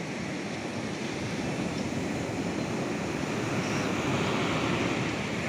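Ocean surf breaking and washing up a sand beach: a steady rushing that slowly builds louder over the first few seconds.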